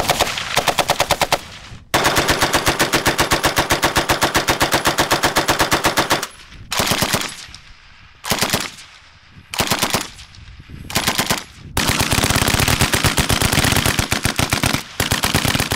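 British .303 machine guns, a Bren light machine gun and water-cooled Vickers guns, firing fully automatic in bursts. A short burst and a long one of about four seconds come first, then four short bursts under a second each, and another long burst with a brief break near the end.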